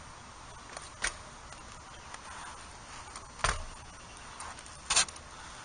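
BMX bike knocking on asphalt during flatland tricks: three sharp knocks, about a second in, midway and near the end, as the lifted wheel comes back down, with a few lighter clicks in between.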